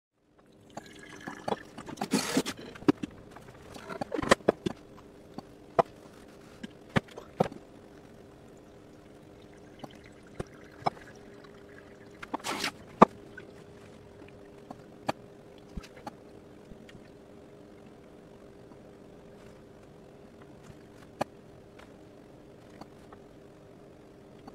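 Sped-up V60 pour-over brewing: short rushing splashes of water poured onto the coffee grounds about two seconds in and again about twelve seconds in, with scattered clicks and knocks and a faint steady hum underneath.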